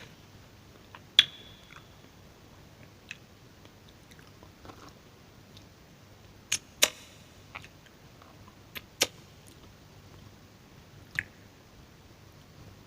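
Close-miked eating of soft strawberries with yoghurt: scattered wet mouth clicks and smacks, about ten sharp ones spread over quiet chewing.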